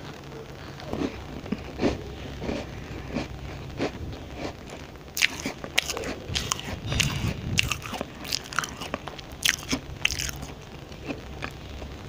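Close-miked biting and chewing of a crunchy butter-and-chocolate cookie: irregular crisp crunches that get louder and come thicker about five seconds in.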